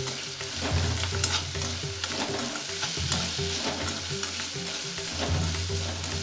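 Sliced onions, green chillies and freshly added curry leaves sizzling in oil in a kadai, stirred with a ladle that scrapes and clicks against the pan.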